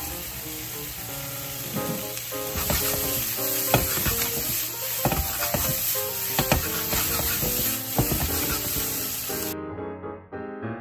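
Pork cubes and vegetables sizzling in a hot stainless steel frying pan, with occasional clinks as the pan is tossed and stirred. The sizzle cuts off suddenly near the end, leaving background piano music.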